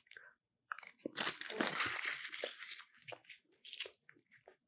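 Crinkling and crushing of a chocolate bar's wrapper as it is handled: one long crinkle about a second in, then a few shorter ones.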